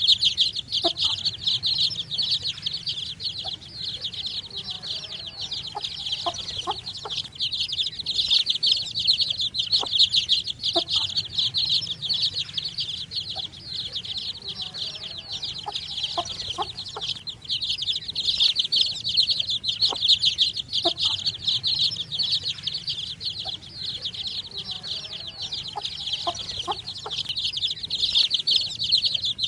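Many baby chicks chirping at once: a dense, unbroken chorus of short, high peeps.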